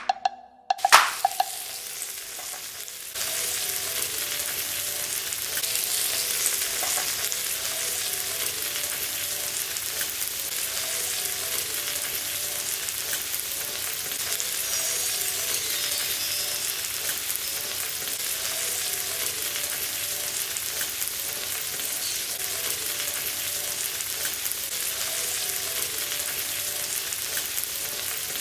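Chicken frying on a tawa griddle, a steady sizzling hiss that starts about three seconds in.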